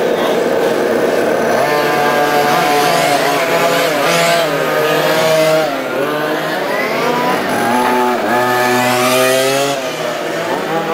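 Several 1:5 scale RC racing cars with small two-stroke petrol engines, revving as they run around the track. Their overlapping engine notes rise and fall in pitch.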